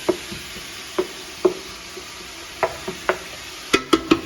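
Ground beef and pork frying with onion in a pan: a steady sizzle, with a utensil knocking and scraping against the pan as the meat is stirred. The knocks come in a quick run near the end.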